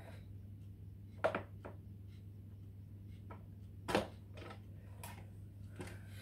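A few light knocks and clicks from small objects being handled and set down, the loudest about four seconds in, over a steady low hum.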